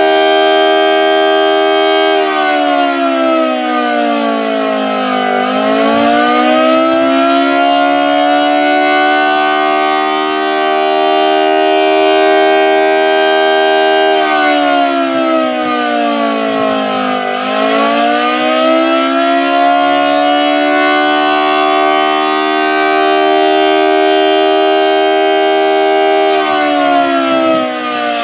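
Federal Model 2T electromechanical warning siren wailing. It holds a steady multi-note tone, slides down in pitch and winds back up twice, and starts a third slide down near the end.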